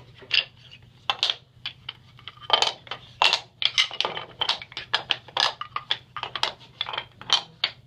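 Wooden letterpress furniture being fitted and pushed into a press bed around the type: a quick, irregular run of dozens of sharp wooden clacks and knocks.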